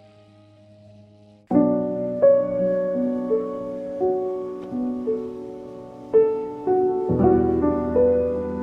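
Background trip-hop music. Soft held notes give way about a second and a half in to a louder melody of struck notes over a bass line, and a deeper bass joins near the end.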